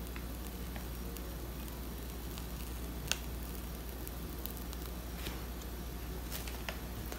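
Disposable plastic piping bag of whipped cream being squeezed through a Wilton 2D star tip to pipe a rosette: faint squishing with scattered small clicks, one sharper about three seconds in, over a steady low hum.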